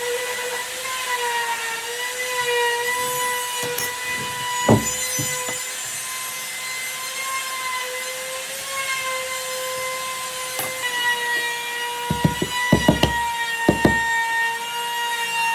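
An electric power tool running with a steady whine as it works wood, with several sharp knocks, one about a third of the way in and a cluster near the end.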